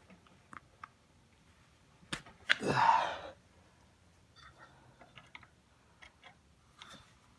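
Light metallic clicks and clinks of a wrench being fitted to and worked on a stuck shift-shaft bolt of an outboard's lower unit. A sharp knock and then a louder, half-second rasping sound come about two and a half seconds in.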